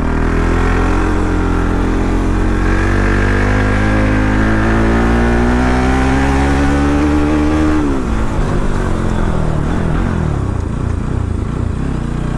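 Bajaj Pulsar NS200's single-cylinder engine accelerating under load, its pitch climbing steadily for about eight seconds, then dropping sharply as the revs fall away, and running unevenly at lower revs near the end.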